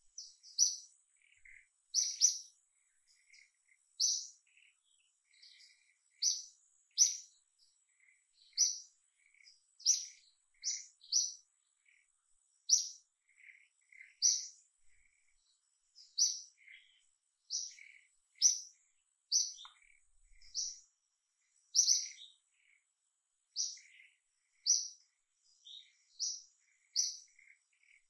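A bird chirping over and over: short, high chirps roughly once a second, with fainter lower chirps between them.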